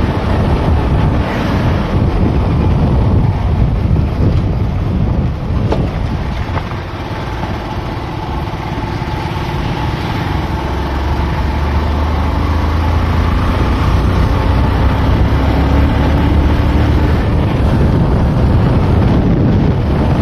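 Wind buffeting the microphone over the engine of a two-wheeler being ridden along a road, a steady low rumble throughout.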